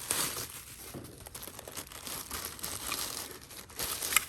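Packaging being handled and unwrapped by hand, plastic crinkling and rustling throughout, with a sharp click near the end.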